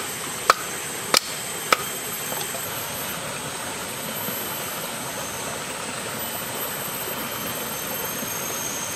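A kukri blade knocking against a wooden stick three times, evenly spaced, in the first two seconds, then a steady rushing noise with no clear strokes.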